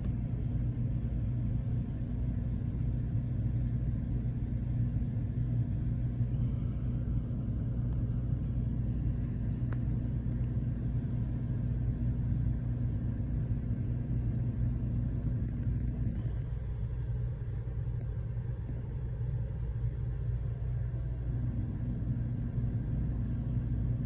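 Dometic 13.5K BTU rooftop air conditioner running with its compressor on, a steady low hum. One of its tones fades for a few seconds about two-thirds of the way through, then returns.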